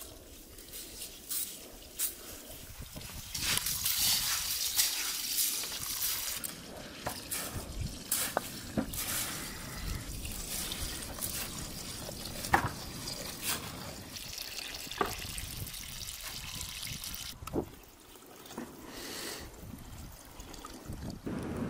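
Water from a garden hose running and splashing into a metal pot of rice as it is rinsed by hand, with scattered clicks and knocks against the pot.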